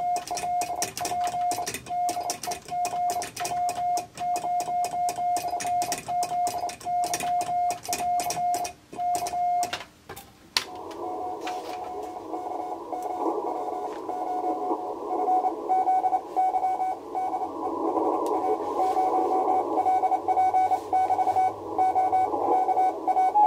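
Morse code being sent on a hand key: a single-pitched beeping tone keyed in dots and dashes, with the key's sharp mechanical clicks. About ten seconds in the sending stops and a receiver's band hiss opens up, with the other station's fainter Morse reply keyed through the noise.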